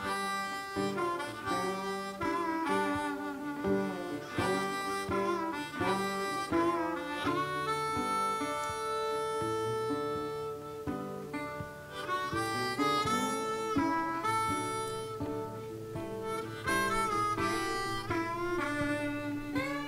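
Background music with a lead melody of bending and held notes over an accompaniment.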